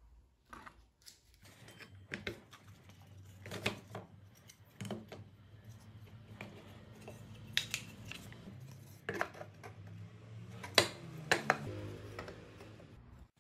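Plywood panels being handled and set against each other on a cutting mat: scattered wooden knocks and taps, several sharper ones in the second half, over a faint low hum.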